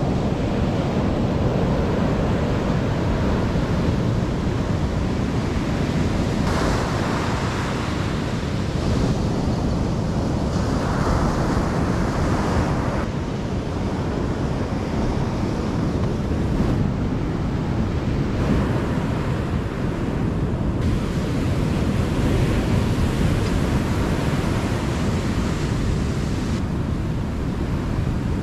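Ocean surf breaking steadily on a sandy beach, with wind noise on the microphone.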